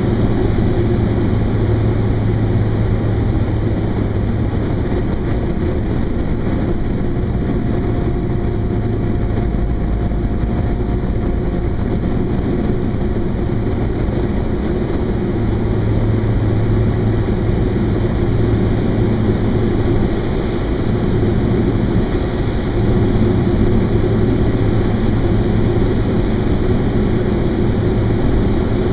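Engine and propeller of a Thrush crop-dusting plane heard from inside the cockpit: a steady, loud drone. The low hum fades somewhat for several seconds through the middle and comes back strongly afterwards.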